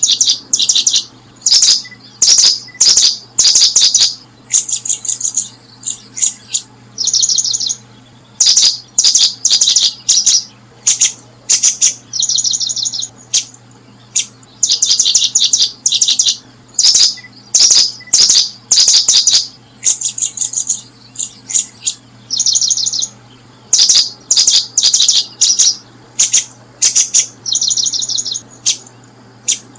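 Small birds chirping in quick runs of high, rapid notes, one burst after another with only short gaps between.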